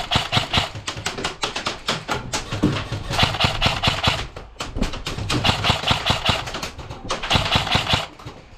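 Airsoft guns firing in repeated bursts of rapid clicking shots.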